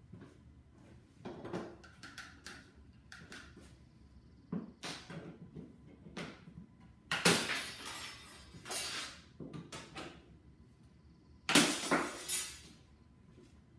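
A wooden shipping crate being worked open with tools: scattered knocks and clatter, and harsh bursts of wood-and-metal noise about a second long, the loudest about halfway through and again near the end.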